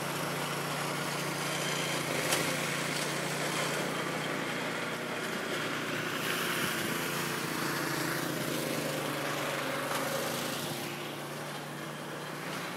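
A steady engine hum under a haze of outdoor noise; the hum fades about two seconds before the end.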